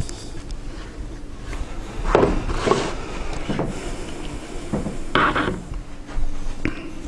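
Several short rubbing and knocking handling noises, a few seconds apart, over quiet room tone.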